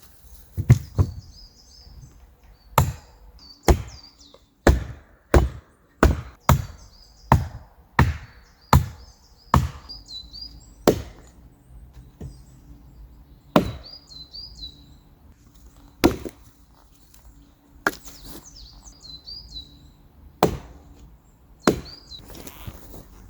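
Wood being chopped: a series of sharp blade strikes into firewood, quick and regular at first, then a couple of seconds apart in the second half. Small birds chirp between the strikes.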